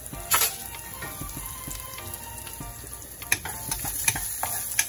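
Onion, mustard seeds, cumin and chili flakes sizzling in hot oil in a small saucepan, with a sharp knock about a third of a second in. A wooden spoon clicks against the pan as the mixture is stirred in the last second and a half.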